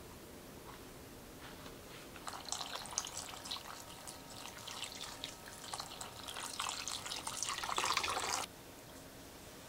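Water poured in a stream into a glass bowl of fresh rose blooms, splashing and bubbling. It starts about two seconds in, grows louder, and cuts off abruptly near the end.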